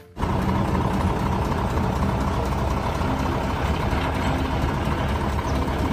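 Heavy truck engine running at a steady idle, a low even rumble that starts and stops abruptly.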